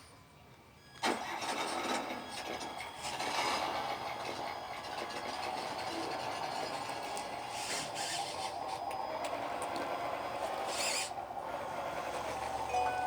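A remote-control model construction machine starts up suddenly about a second in, after a click, and then runs steadily with an engine-like drone. Two brief hisses come about eight and eleven seconds in.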